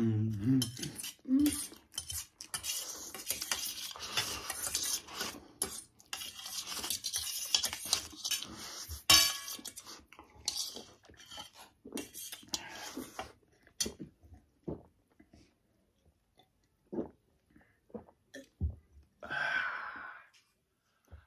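Eating utensils clinking and scraping against bowls as spicy noodles are eaten quickly. The clicking is dense at first, then thins to occasional clicks in the second half.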